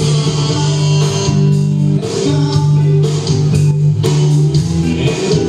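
Live band playing, with guitar and bass to the fore and long held low notes.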